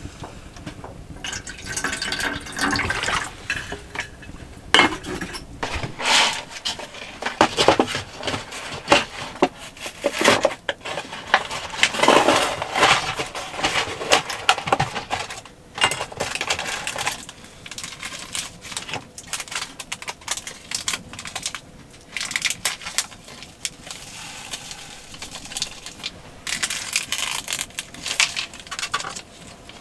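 Pots, dishes and utensils clinking and scraping in irregular bursts of sharp knocks and rattles.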